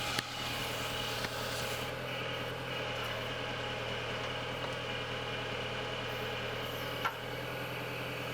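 Tractor engine running steadily while driving the harvester head's hydraulics, with a higher steady tone joining about two seconds in. A faint knock comes about seven seconds in.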